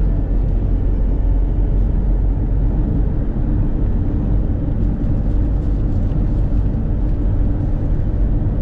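Steady low rumble of a motorhome's engine and tyres on the road, heard from inside the cab while driving along at speed.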